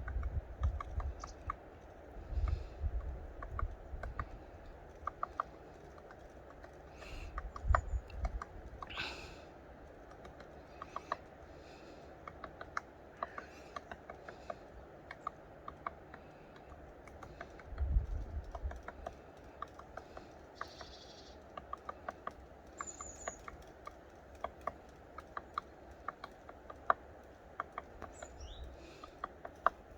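Fire of crates and cooking fat crackling in a glass-fronted fireplace: irregular sharp pops and clicks, with a few dull low thumps.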